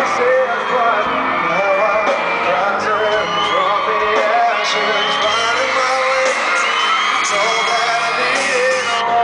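Live pop-rock ballad played by a band, with a male lead vocal sung into a microphone and the audience whooping and yelling over the music.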